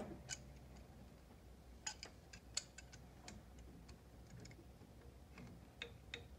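Faint, irregular small clicks and ticks of hand tools and metal parts being handled in a van's engine bay while working at a heater hose tee and its spring clamps.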